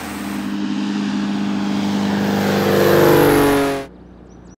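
Engine pass-by sound effect: a droning engine swells to its loudest about three seconds in, drops in pitch as it goes past, and cuts off abruptly just before the end.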